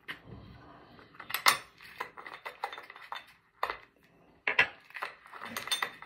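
Small metal clicks and clinks of an Allen key working a set screw out of a K-Drill auger adapter. Two louder clinks come about a second and a half and four and a half seconds in, and a run of small ticks near the end.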